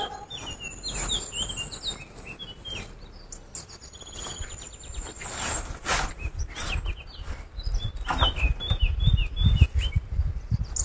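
Small garden birds chirping and singing throughout, with a long thin high whistle twice. A sharp knock about six seconds in as a metal wheelbarrow tips its load of soil, then low thuds and rumbling near the end as the wheelbarrow is set down and handled.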